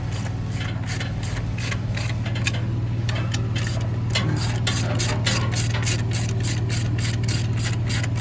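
Hand ratchet clicking in quick, even strokes during a roadside tire change, speeding up to about four or five clicks a second, over a steady low hum.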